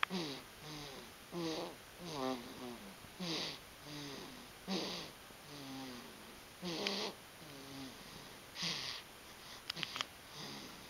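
Steady rhythmic snoring, a breath about every second or so. Each breath carries a rasp with a whistling tone that falls in pitch. A few sharp clicks come near the end.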